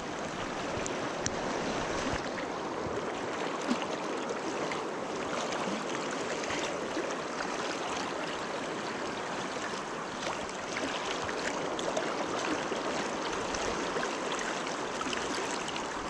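River water rushing steadily through a fast riffle, an even rushing sound with a few faint clicks.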